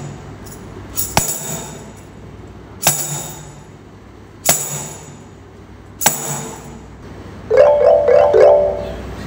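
Music on mallet percussion: four slow, evenly spaced struck notes that ring out, about one every second and a half, then near the end quick runs of xylophone-like notes.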